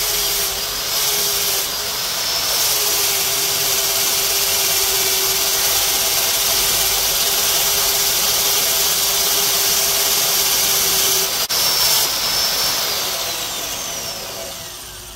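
Old single-speed Black & Decker electric drill running with its trigger locked on, spinning a cup wire brush while a head bolt is held against it to scrub the muck out of the threads: a steady motor hum over the brushing noise. Near the end it is switched off with a click and winds down, its pitch falling.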